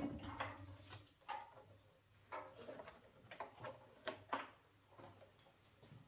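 A faint series of irregular light clicks, taps and rustles, about eight in all, of small things being handled, over a low steady hum.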